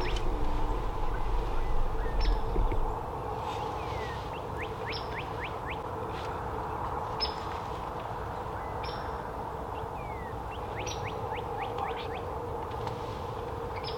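A wild songbird repeating the same short song about every two seconds: a high note, then a quick run of lower notes. Beneath it are a steady hum and background noise, and a louder low rumble fades out about three seconds in.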